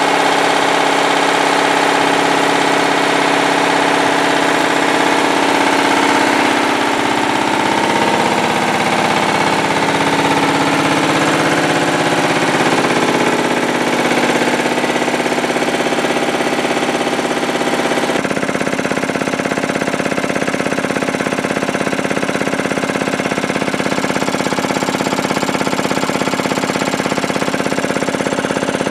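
Matsubara CMH 114A marine piston air compressor, driven by its electric motor, running steadily on a test bed with a continuous mechanical clatter. The sound changes abruptly about two-thirds of the way through.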